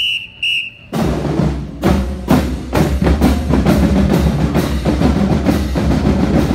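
Two short blasts on the drum major's whistle, then about a second in the marching band strikes up, drums hitting a steady beat about twice a second.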